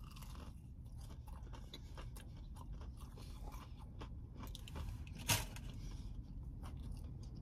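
A person chewing a bite of fried chicken: faint crunches and mouth clicks, with one louder click a little over five seconds in.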